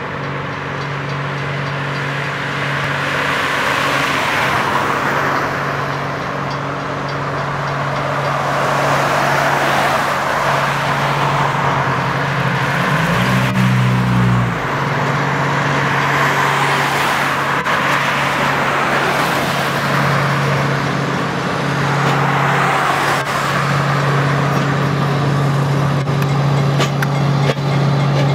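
Diesel engine of a railroad maintenance-of-way locomotive crane running with a steady low hum as it slowly hauls gondola cars along the track. Road vehicles pass close by several times, each rising and fading as a swell of tyre noise.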